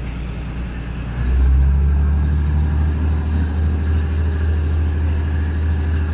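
Low, steady rumble of a moving vehicle, which grows louder about a second in and then holds.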